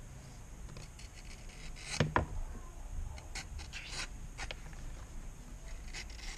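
Kiridashi knife, forged from a file, slicing through a piece of leather: a few short scratchy cuts, the loudest about two seconds in.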